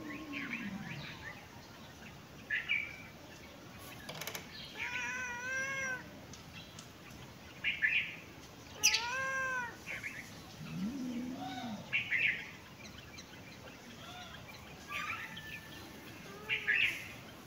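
A cat meowing: two drawn-out meows, about five and nine seconds in, and a lower, shorter cry near eleven seconds, with short high chirps scattered between them.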